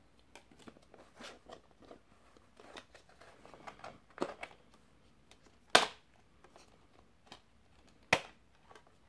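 Clear plastic multi-disc Blu-ray case being handled: light plastic rattles and taps, then two sharp clicks, about six and eight seconds in, the first the louder, as Blu-ray discs are pried off the case's centre hubs.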